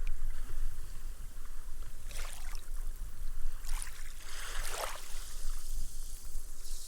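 Small, gentle sea waves washing up a sandy beach, the foam fizzing twice as the water soaks into the sand, over a steady low rumble.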